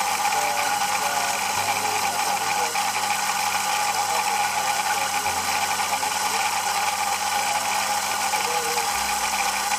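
Electric espresso coffee grinder running steadily, grinding coffee beans into a steel dosing cup.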